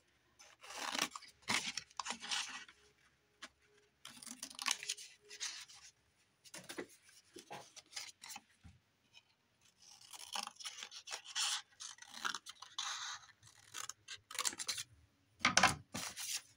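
Paper and card rustling and scraping as pieces are handled and shifted, in irregular bursts, with a few sharper knocks about fifteen seconds in.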